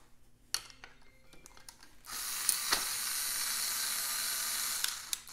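Faint clicks and taps of hands fitting a bolt into a plastic knitting-machine part. From about two seconds in, a steady hiss runs for about three seconds and stops shortly before the end.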